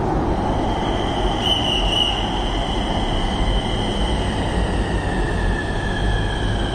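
Pune Metro electric train pulling in alongside the platform and slowing: a steady running rumble with a high whine from its traction motors that falls slowly in pitch as the train decelerates.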